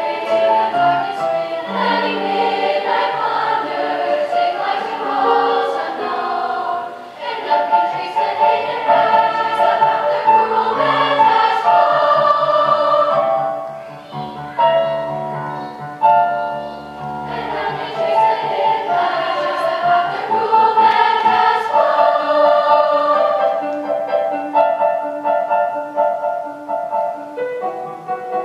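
Middle school choir singing, with short breaks between phrases.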